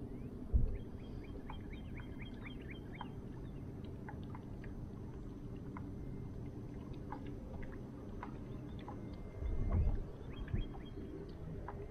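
Minn Kota Endura trolling motor running with a steady hum, while birds chirp in quick runs of short high notes. Two low thumps come about half a second in and near the end.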